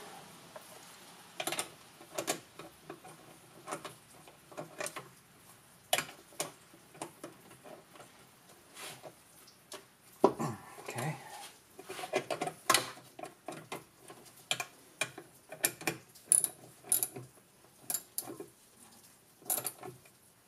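Irregular metal clicks and clinks of hand tools working the nuts onto the copper terminal studs of a golf cart's forward/reverse switch.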